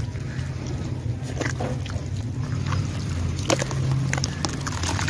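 Hands squishing and crumbling chunks of red dirt in a tub of wet red dirt paste, with scattered wet squelches, slaps and crumbles, over a steady low hum.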